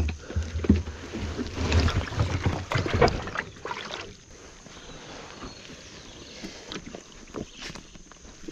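Splashing and sloshing as a person steps from a plastic kayak into shallow muddy water, with knocks and bumps against the hull, loudest in the first three seconds. After that come quieter scattered rustles and small knocks as he climbs through bankside grass and mud.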